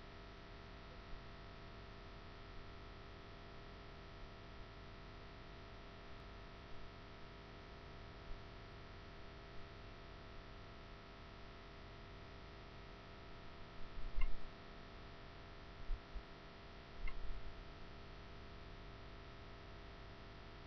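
Steady electrical hum with a faint whine and hiss from the recording device's microphone. A few dull low thuds and small ticks come about two-thirds of the way in, from something knocking near the microphone.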